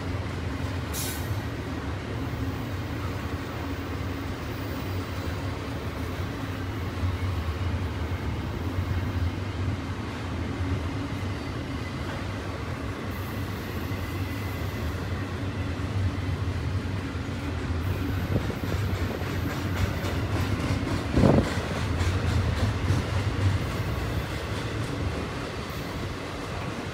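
Double-stack intermodal freight cars rolling past at speed: a steady rumble of steel wheels on the rails, with one sharp, loud thump about three-quarters of the way through.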